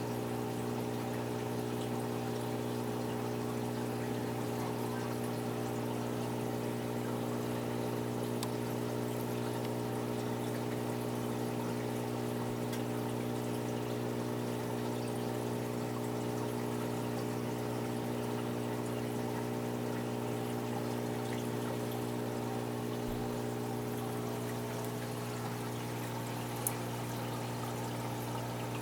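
Aquarium filter pump running: a steady motor hum under water flowing continuously into the tank, with one short click near the end.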